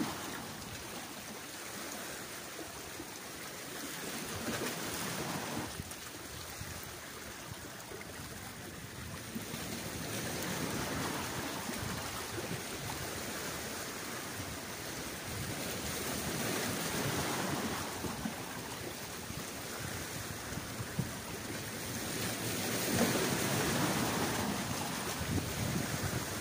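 Sea waves washing against the rocks of a breakwater, swelling and easing about every six seconds, with wind buffeting the microphone.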